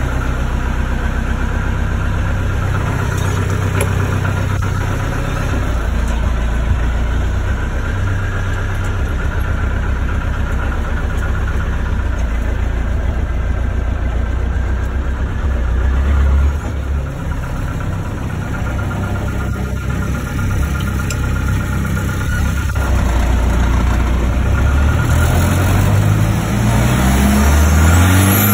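1967 Land Rover Series IIA's 200Tdi four-cylinder turbodiesel idling steadily shortly after a cold start, then revving up in a few rising pulls near the end.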